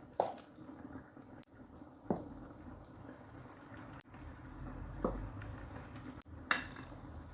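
Four separate sharp knocks or taps, each with a brief ring, spread a second or more apart over a faint steady background hum.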